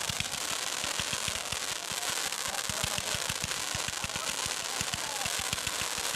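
Consumer fireworks cake firing a rapid, even barrage of shots, several a second, each launch a sharp thump, over a steady hiss from the burning stars.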